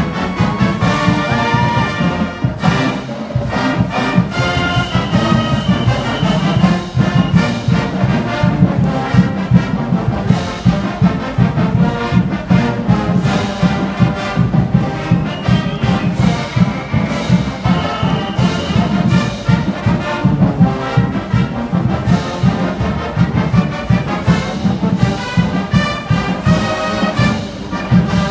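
College marching band playing a loud brass tune over a steady drum beat, with sousaphones, horns and drumline.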